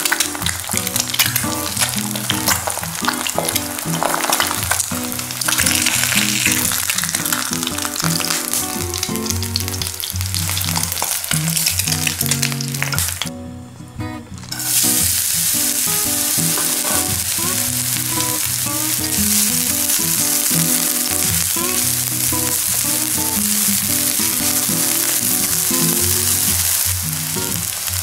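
Eggs frying in hot oil in a nonstick pan, sizzling with many sharp crackles. After a brief drop-out about halfway, a steadier, even sizzle of oil frying sliced green onions.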